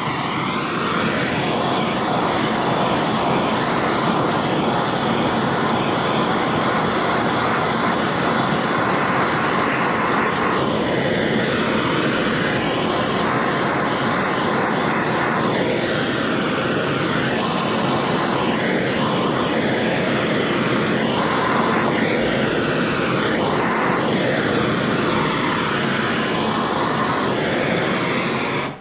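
MAPP gas torch burning on a Bernzomatic MAP-Pro cylinder: a steady, loud flame hiss whose tone sweeps up and down in places, cutting off at the end. The torch is heating tinning flux on a steel trunk lid, the tinning stage before body solder is applied.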